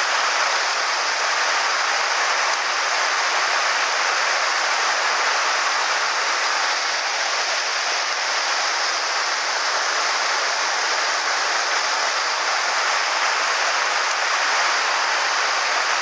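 Mountain stream rushing over rocks in shallow rapids: a steady, even rush of water.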